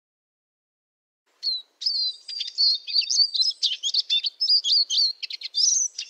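Eurasian siskin singing: a fast, continuous run of high twittering notes that starts about a second and a half in.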